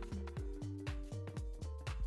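Background music: an electronic track with a steady beat of deep kick drums and light ticks over held synth notes.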